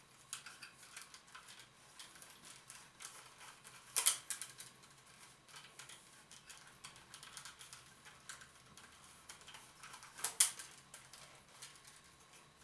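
Peeled willow rods rustling and clicking against one another and against the stakes as they are woven by hand in a rope weave, with two sharper clicks, one about four seconds in and one near the end.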